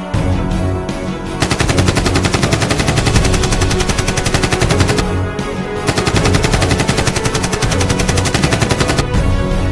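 Automatic-gunfire sound effect: two long bursts of rapid, evenly spaced shots, the first from about a second and a half in to about five seconds, the second from about six to nine seconds, over background music.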